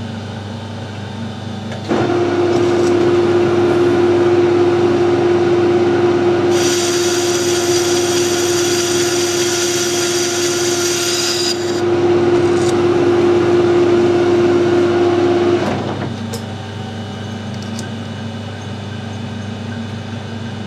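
Harrison metal lathe running while a light cut is taken on the register of a chuck back plate, bringing its diameter down towards 130 mm. About two seconds in a steady whine comes in and holds until about three-quarters of the way through. For about five seconds in the middle a high-pitched cutting sound rides on top.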